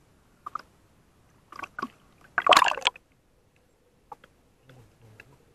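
Seawater splashing and sloshing at the surface, with one loud splash about halfway through. Then the sound drops suddenly to faint, muffled clicks as the microphone goes underwater.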